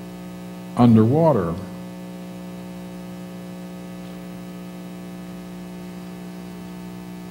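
Steady electrical mains hum with a stack of even overtones, after a man says one word about a second in.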